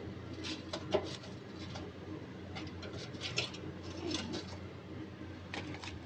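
Kitchen tongs clicking and scraping as fried breaded chicken fillets are picked up and dropped into a glass baking dish. The sharp taps are scattered and irregular, the loudest about a second in, over a steady low hum.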